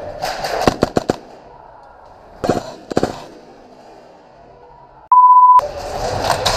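Airsoft guns firing: a quick string of sharp cracks in the first second and another short string about two and a half seconds in. About five seconds in, a loud half-second censor bleep, one steady beep.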